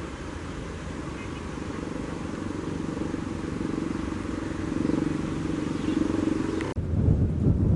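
Passenger train running on the tracks: a steady rumble with a low hum that slowly grows louder. About 7 seconds in it cuts off suddenly and a deeper, louder rumble with wind on the microphone takes over.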